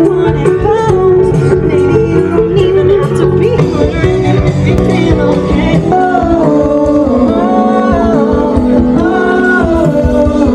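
A band playing a song with a singer over guitar accompaniment.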